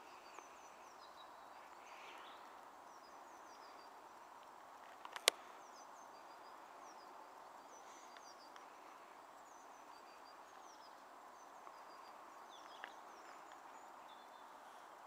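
Quiet outdoor ambience with small birds chirping, short high chirps repeating throughout, over a faint steady background hum. A single sharp click about five seconds in.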